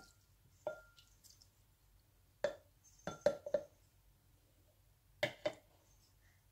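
Light clinks and knocks on a ceramic cereal bowl while milk is poured from a plastic bottle over Weetabix. They come singly, then in a quick run of four near the middle, then in a pair near the end, each ringing briefly.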